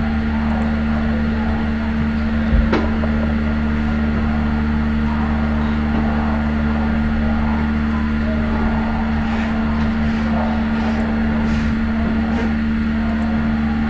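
Steady electrical hum with background hiss in the recording, with one sharp click about three seconds in and a few faint ticks near the end.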